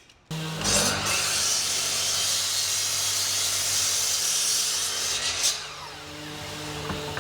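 An electric power tool starts abruptly and runs at a steady pitch, with a dense hiss over a motor hum, for about five seconds, then winds down.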